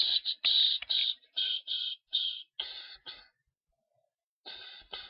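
A person's voice making short choppy bursts of vocal percussion, about ten in quick succession, breaking off about three and a half seconds in and starting again near the end.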